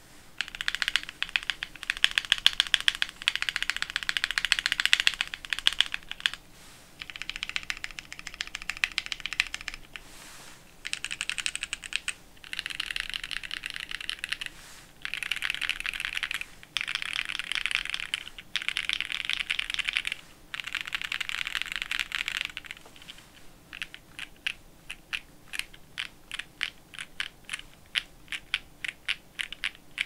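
Keys of a Ginkgo65 gasket-mounted mechanical keyboard being typed on: polycarbonate plate with plate and case foam, broken-in Novelkey Cream linear switches and GMK ABS keycaps. Fast typing in bursts with short pauses between them, then for the last seven seconds or so slower, separate keystrokes about three or four a second.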